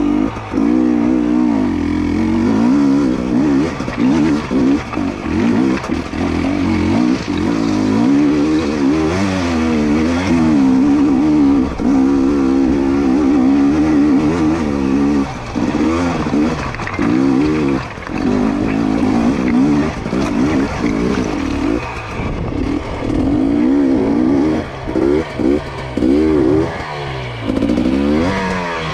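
2022 GASGAS EC250 two-stroke dirt bike engine working at low speed over loose rock, its pitch rising and falling constantly as the throttle is fed in and eased off. In the second half the throttle is chopped and blipped in quick, repeated bursts.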